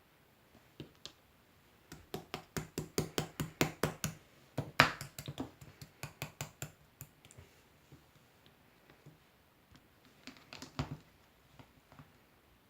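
Slime being pressed and poked by hand, making a quick run of crisp clicks and pops, about four or five a second, with one louder pop about five seconds in and another short burst of clicks near the end.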